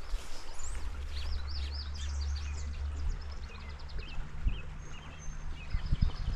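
Songbirds chirping and singing, with runs of quick up-and-down notes in the first half, over a steady low rumble. A few short knocks come near the end.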